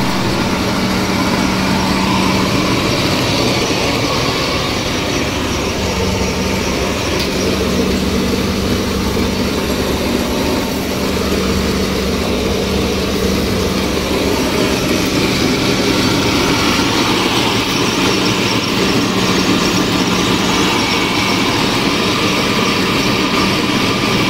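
Electric flour mill (chakki) running steadily while grinding dry maize into flour: a loud, even machine noise with a constant hum.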